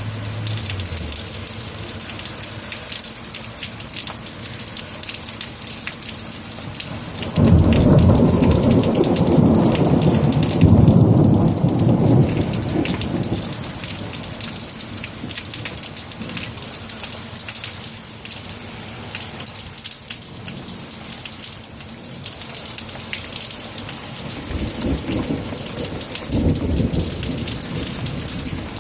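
Steady rain falling throughout. About seven seconds in, a thunderclap breaks in suddenly as a loud low rumble that lasts several seconds, and a fainter, shorter rumble of thunder follows near the end.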